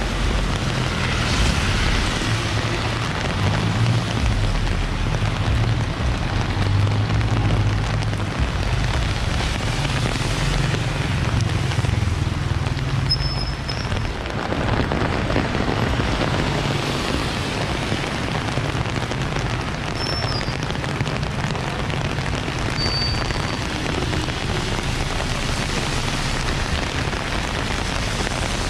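Rain falling on a wet city street, with a steady hiss of rain and tyres on wet pavement. Under it runs the low rumble of passing vehicles, heaviest in the first half.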